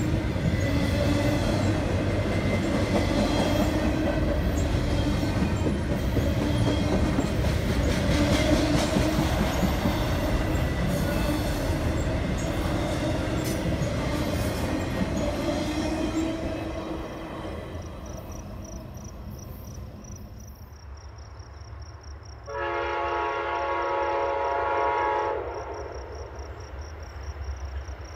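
Double-stack intermodal freight train rolling past with steady wheel rumble and clatter, fading away about two-thirds of the way through. Then an approaching Amtrak passenger locomotive sounds its multi-tone horn: one long blast of about three seconds, and another starting at the very end.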